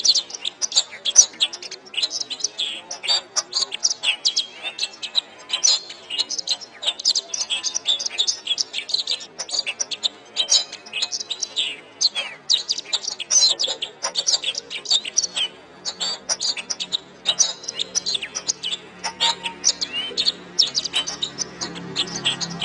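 Domestic canary singing a continuous, rapid song of high chirps and trills. A low hum comes in near the end.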